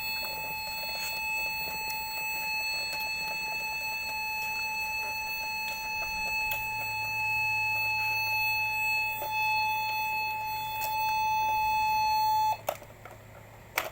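Electronic toy's speaker sounding one steady, unbroken beep tone for about twelve seconds. It then cuts off suddenly and two sharp clicks follow. The stuck tone is not how it should sound; the toy is broken.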